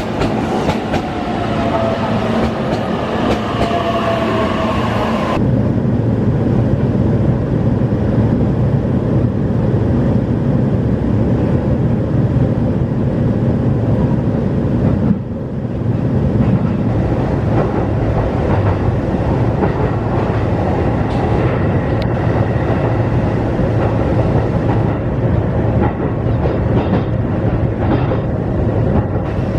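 Electric train pulling in, its motor whine falling in pitch as it slows. After a sudden change about five seconds in, there is the steady low rumble of the train running.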